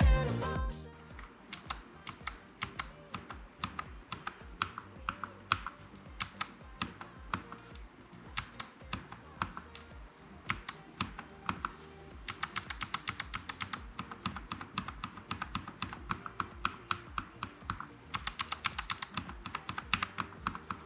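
Typing on a NuPhy Air75 low-profile mechanical keyboard with Gateron low-profile switches: irregular keystroke clicks that come in faster runs a little past the middle and again near the end. Background music fades out about a second in.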